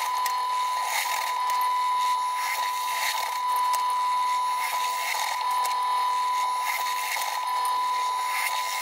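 Benchtop drill press running with a steady whine, with a short rasp about once a second as the bit cuts through metal square tubing.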